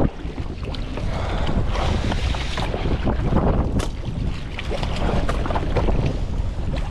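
Strong wind buffeting the microphone in a steady low rumble, over choppy sea water splashing and lapping.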